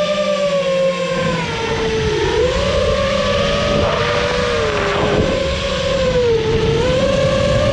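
5-inch FPV quadcopter's brushless motors and propellers whining, the pitch dipping and rising again and again with the throttle as it banks and dives, over a rush of air noise.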